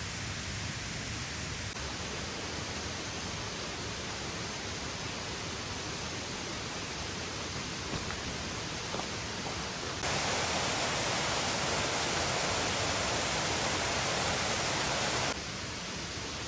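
Steady hiss of rushing water. About ten seconds in it jumps suddenly louder and brighter for some five seconds, then drops back just as suddenly to the softer hiss.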